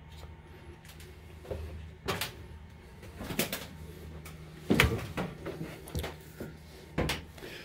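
A string of sharp knocks and bumps from someone clambering through a Halifax bomber's fuselage and handling its metal structure, over a steady low hum.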